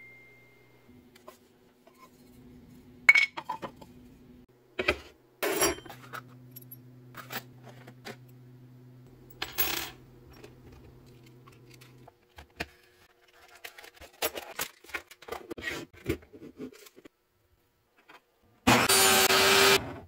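Scattered clinks and knocks of small metal tools, spade bits and wire pegboard hooks, being handled and set down. Near the end comes a table saw's brief loud cut through a thin board.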